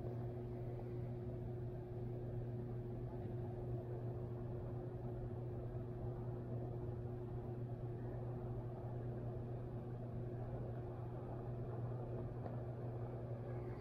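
Steady low machine hum over a faint even rush, unchanging throughout, from the hydroelectric dam's powerhouse just upstream.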